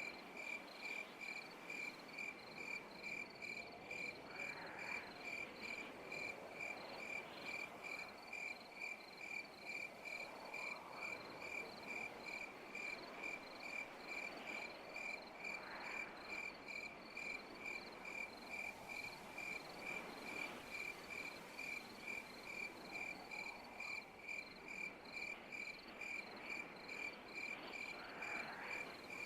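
Night insects chirping: one high, steady chirp repeating evenly about three times a second, with fainter rising-and-falling calls coming in every few seconds behind it.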